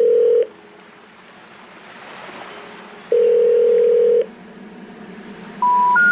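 Electronic background music: a held synth tone, a soft whooshing swell, a second held tone, then three short beeps stepping upward in pitch near the end.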